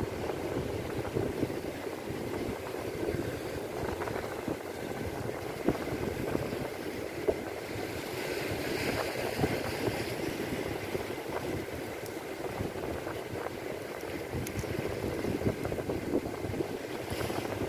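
Steady rushing wash of sea surf on the shore, with a few faint sharp clicks.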